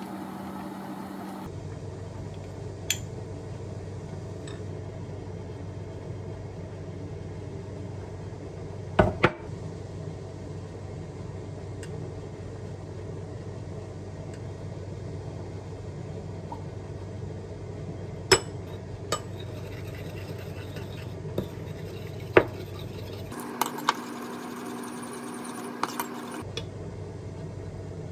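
Dishes and utensils clinking and knocking now and then, about a dozen separate hits with the loudest a quick double knock about nine seconds in, over a steady low hum.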